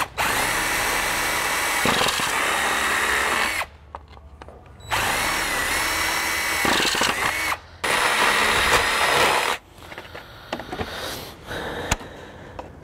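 Cordless drill boring a hole through a plastic grille frame, in three runs of a few seconds each, its motor whine sagging briefly in the second run as the bit bites. Quieter clicks of handling follow in the last few seconds.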